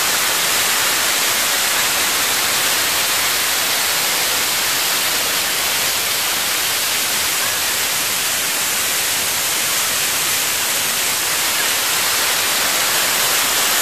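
Waterfall rushing over rocks close by: a loud, steady hiss of falling water with no change throughout.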